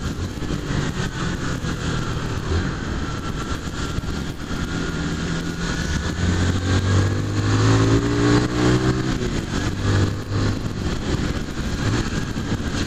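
Honda CG 150 Fan's single-cylinder four-stroke engine running under way, with a steady rush of wind and wet-road noise. About six seconds in the engine pulls up in revs, then eases off again near the ten-second mark.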